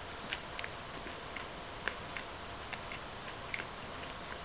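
A person chewing a scorpion: sharp, irregular clicks and crunches from the mouth, two or three a second, over a steady hiss.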